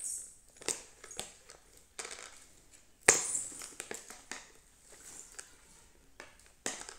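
A spoon scraping and knocking against a metal cooking pot as chunks of masala-coated rabbit meat are stirred, in irregular strokes with the loudest scrape about three seconds in.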